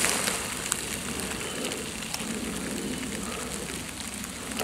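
Woodland ambience: a steady hiss with a few faint, scattered ticks.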